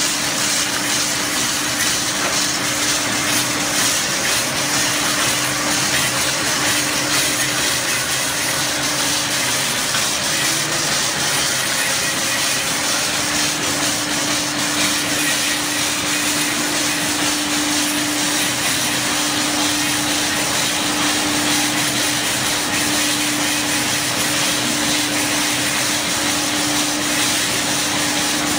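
Wooden round-rod sanding machine and double-end cutting machine running steadily: a constant motor hum under a loud, even hiss of machining.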